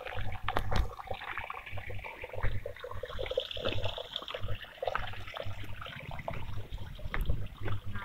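A small stream of shallow water trickling along a narrow earth channel, with irregular low thumps and scuffs from walking along the path beside it.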